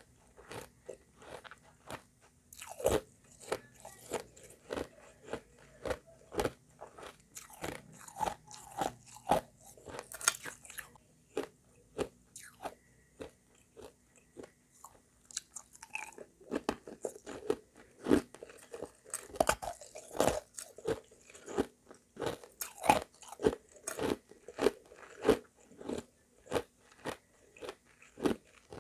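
Close-miked chewing of hard, refrozen shaved ice mixed with crushed ice: a steady run of sharp crunches, about two a second, with a brief slower stretch near the middle.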